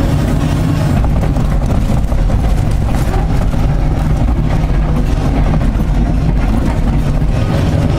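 Liebherr R 944 C crawler excavator's diesel engine running steadily under digging load, heard from inside the cab.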